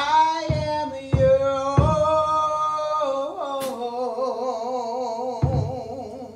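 A woman singing a gospel solo into a microphone, closing the song on long held notes with a wide vibrato that fade out at the end. A few low thumps sound underneath.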